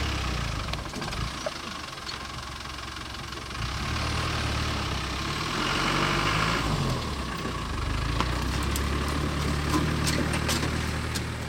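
Safari game-drive vehicle's engine running at low revs, its note shifting about seven seconds in, with a few scattered clicks near the end.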